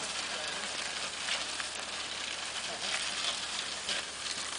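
Steady outdoor hiss in an open field, with a few faint, brief rustles.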